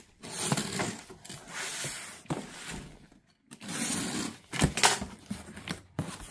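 Box cutter slicing through packing tape along the seams of a cardboard box in several scratchy strokes, with a couple of sharp cardboard knocks about two thirds of the way through as the flaps are pulled open.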